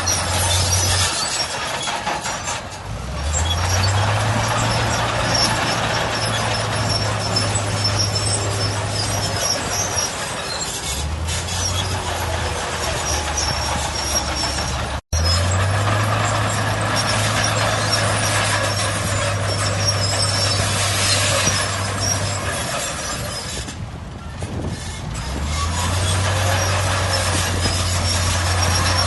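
Heavy diesel earthmoving machinery running, its engine revs rising and falling several times. About halfway through there is a momentary dropout in the sound.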